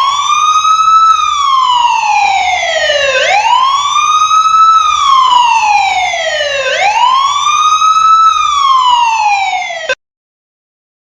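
Police siren sounding a slow wail: each cycle rises quickly in pitch, then falls slowly, repeating about every three and a half seconds. It cuts off suddenly near the end.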